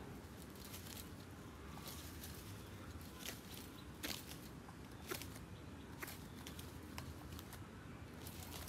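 Faint, irregular sharp clicks and taps, roughly one a second, over a low steady hum.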